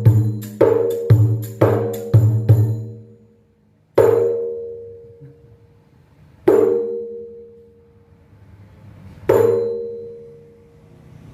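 Rapai, the Acehnese frame drum, struck by hand in a steady beat about twice a second that stops about two and a half seconds in. Then come three single strokes a few seconds apart, each ringing out with a deep pitched tone that slowly dies away, as the drum's sound is tried out.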